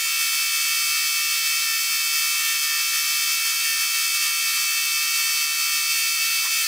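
Diesel injection-pump test bench running a Bosch P7100 inline injection pump at speed, making a steady, high-pitched mechanical whine with many even tones. The pump is feeding calibration fluid to the graduated cylinders for a delivery test.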